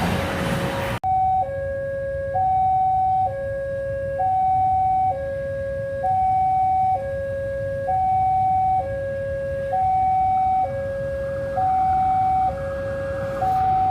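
About a second of loud passing-train noise cuts off, and a railway level-crossing warning alarm takes over: two electronic tones alternating high and low, each held about a second, over a low rumble.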